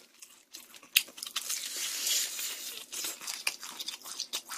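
Crispy rice-batter fried chicken crackling and tearing as it is pulled apart by hand, a dense run of sharp crackles, thickest about two seconds in.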